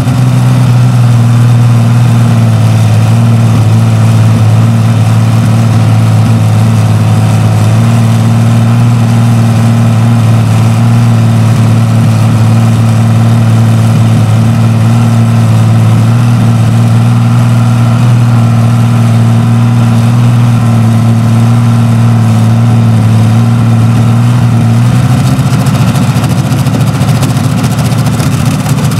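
Rolls-Royce Meteor Mk IVB 27-litre V12 tank engine running steadily at a constant speed, with a deep even note. Near the end the note turns rougher.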